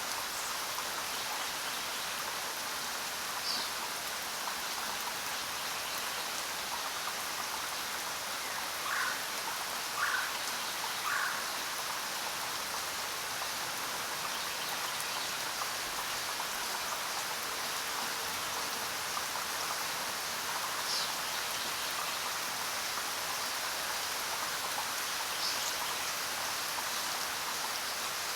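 Steady hiss of heavy rain falling. A few short animal calls stand out: three lower calls about a second apart near the middle, and three brief high chirps spread through the rest.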